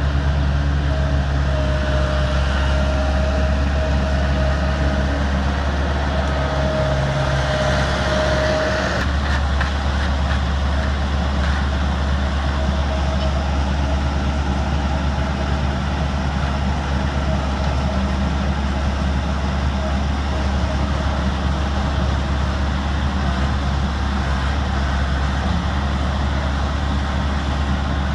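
Skid steer loader's engine running steadily with a low drone. A thin whine over it stops about nine seconds in.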